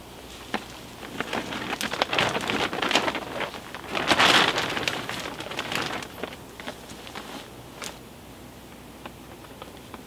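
A plastic tarp rustling and crinkling as it is hauled over a ridge pole and draped, a dense crackle full of small clicks that builds, is loudest about four seconds in, then thins to a few scattered crackles.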